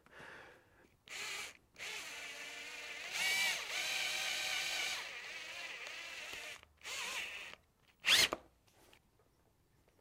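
Cordless drill running, drilling a hole through plastic motorcycle fairing. A short burst comes about a second in, then a steady whine lasting about five seconds that rises in pitch partway through. Two short bursts follow near the end.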